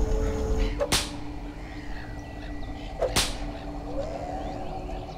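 Two sharp gunshot cracks, about two seconds apart, each with a short ring after it.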